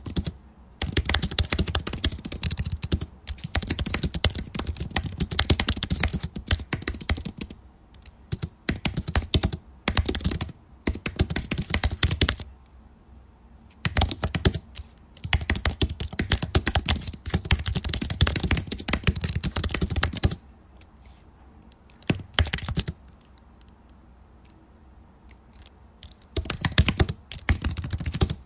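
Computer keyboard typing in fast runs of keystrokes broken by short pauses, with the typing thinning to a few brief bursts after about twenty seconds.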